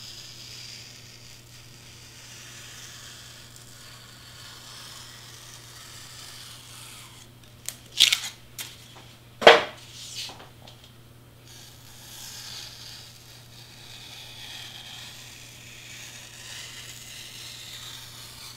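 Craft knife with an Excel blade slicing through foam board on a self-healing cutting mat: a faint steady scraping hiss. It is broken about eight to ten seconds in by a few sharp knocks and taps as the board is handled and turned, the loudest near the middle.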